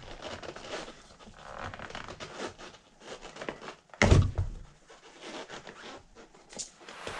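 Rubber RC paddle tire being stretched and worked off its foam insert by hand: irregular rubbing and scraping noises, with one sudden louder sound about four seconds in.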